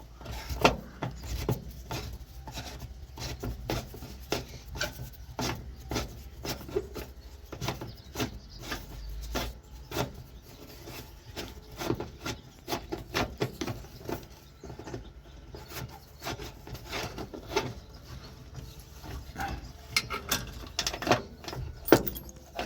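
Flathead screwdriver scraping and clicking against the metal front of a 1956 Ford truck's headlight switch as it is worked loose from the dash, in a long run of irregular small scrapes and clicks.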